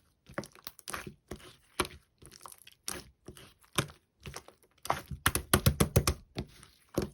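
Clear slime being squeezed and pressed by hand, giving a string of sharp clicks and crackling pops, thickest and loudest about five seconds in.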